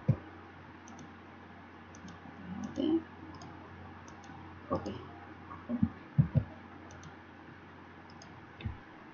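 Computer mouse clicks: a few scattered single and paired clicks over a faint steady hum.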